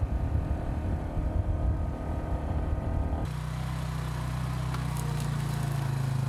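An uneven low rumble for about the first three seconds, then an ATV (four-wheeler) engine running steadily at low speed as it drives slowly through the woods.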